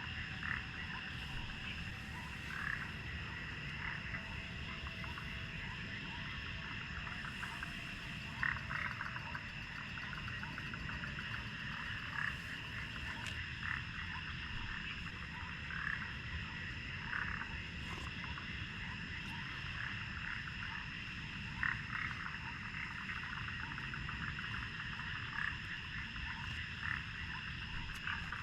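Frogs croaking in short calls every second or two, over a steady high-pitched drone of night insects.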